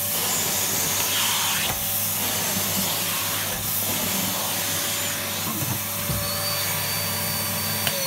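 Numatic Basil NB200 cylinder vacuum cleaner running steadily on its UDS motor: an even rush of air over a low hum. A thin high whistle comes in about five seconds in.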